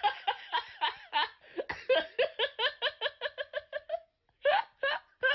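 A person laughing hard in a fast run of short ha-ha pulses, about five a second, which breaks off about four seconds in; a few more short laughs follow near the end.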